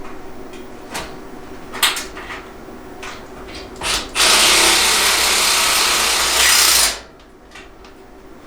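A few clicks and knocks, then a power drill runs steadily for nearly three seconds and stops suddenly.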